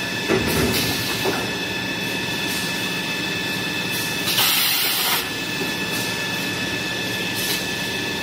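Toilet paper and kitchen towel rewinding machine running: a steady mechanical whir with several constant high whining tones and a few short clicks. A hiss lasting under a second comes about halfway through.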